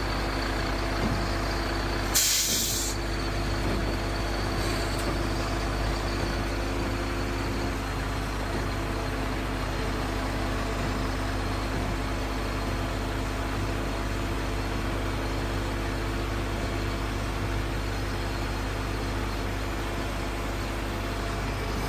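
Heavy diesel engine running steadily at idle, with one short sharp hiss of released air about two seconds in.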